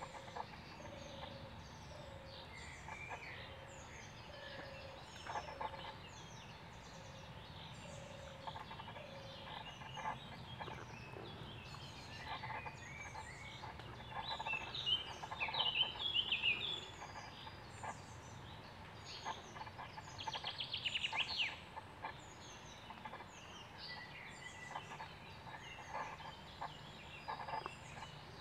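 Several wild birds singing and calling. A low note repeats at an even pace through the first nine seconds or so, and louder bursts of song come around the middle.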